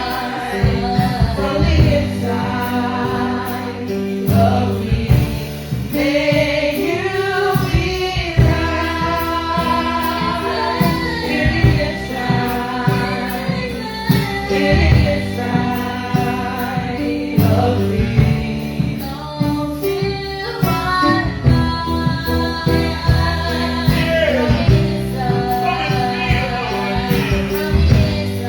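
Gospel worship music: a group of singers led by female voices, over a band with bass and drums.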